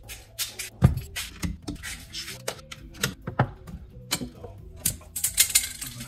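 Background music over irregular sharp clicks and knocks from unclipping and pulling out a tailgate gas strut, the loudest knock about a second in.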